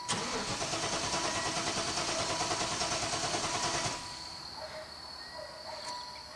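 Starter cranking the Caprice's LT1 5.7-litre V8 cold for about four seconds with a fast, even pulsing, without the engine catching, then stopping abruptly: a hard start after the car has sat.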